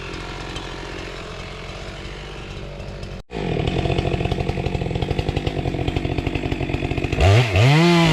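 Two-stroke chainsaw idling with an even pulsing beat, then revved up to a high, steady full-throttle pitch near the end.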